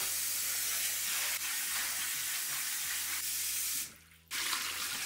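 Kitchen tap water running into a glass bowl of green lentils, a steady splashing hiss as the bowl fills for rinsing. It breaks off for about half a second about four seconds in, then runs again.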